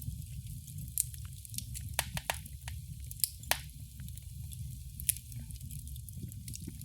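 Wood fire crackling in a fireplace: a steady low rumble of burning with constant small crackles and several sharper, louder pops scattered through.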